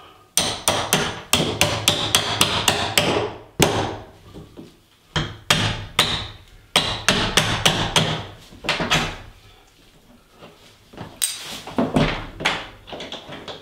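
Hammer tapping on a screwdriver set under a door hinge pin, metal on metal, driving the pin up out of the hinge. The taps come in quick runs of about four a second, with short pauses between the runs.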